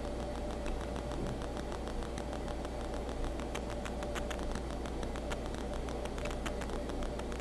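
Steady low background hum with a fainter steady tone above it, and a faint fast crackle of clicks through the second half.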